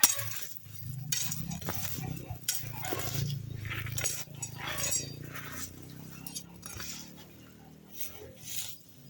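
Clinks and knocks of utensils against dishes or pots, repeated irregularly over a low steady hum.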